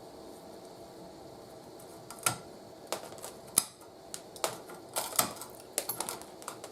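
Irregular sharp clicks and taps of tools and small parts being handled at a workbench, starting about two seconds in over a faint steady background.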